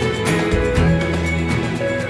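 Background music: an instrumental passage with guitar and a steady beat.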